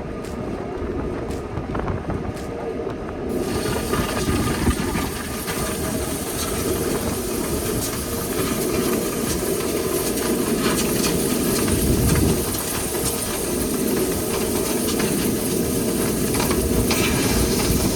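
Dryer vent cleaning equipment running: a steady machine rumble, joined suddenly about three seconds in by a steady hiss of compressed air blowing through the vent line, with small rattles throughout.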